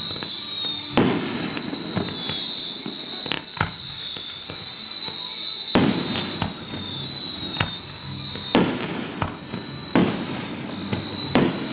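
Fireworks display: aerial shells bursting with about eight loud booms spread a second or two apart, with smaller crackling pops between them.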